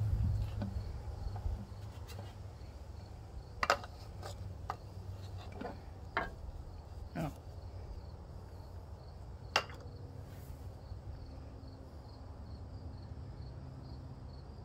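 Insects chirping in a steady, regular rhythm over a low steady hum, with a few sharp clicks and knocks from handling a lawnmower's plastic fuel tank and a glass bottle; the loudest knocks come about a quarter of the way in and again about two thirds of the way in.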